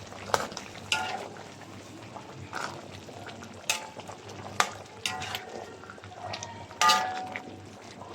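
A metal utensil stirring a pot of beef soup, clinking against the pot about eight times with short metallic rings; the loudest clink comes near the end.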